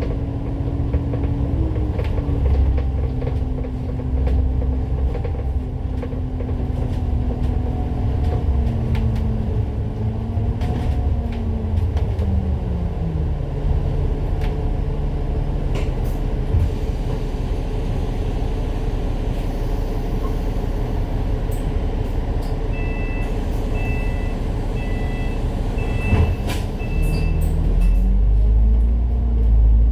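A bus's engine and drivetrain winding down as the bus slows, settling to a steady low idle, then rising in pitch again as it pulls away near the end. A run of short electronic beeps sounds just before it moves off.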